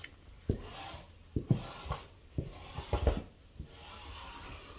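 Hands rubbing and smoothing cotton wax-print fabric on a tabletop, a scratchy rustle broken by several soft knocks, the loudest about three seconds in.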